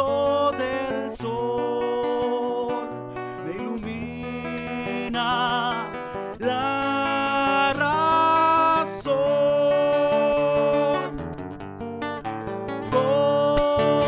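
Music: a song with acoustic guitar and a singing voice holding long notes.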